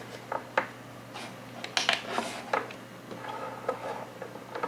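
Several light, separate clicks and taps of small hard pieces being handled: freshly printed resin models being dried under a UV nail lamp.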